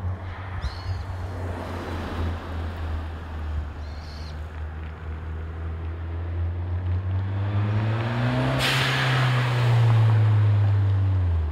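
Toyota Celica GT-Four ST205's turbocharged 3S-GTE four-cylinder accelerating in a drive-by: the engine note climbs in pitch and grows louder, with a rush of noise as the car passes about eight and a half seconds in, and the pitch drops at the very end as it pulls away.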